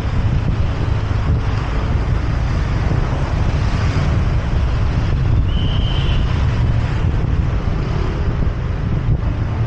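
Wind buffeting an action camera's microphone on a moving motorcycle: a steady low rumble mixed with road noise. A brief high tone sounds a little past halfway.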